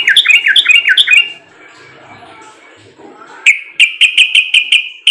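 Yellow-vented bulbul (trucuk) singing loudly. It gives a run of about four falling notes in the first second and a half, then after a short pause a quick series of about eight sharp notes near the end.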